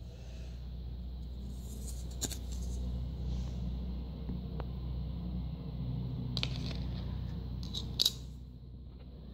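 Broken plastic drone shell being handled: light plastic scraping and clicks, with the sharpest click near the end, over a steady low hum.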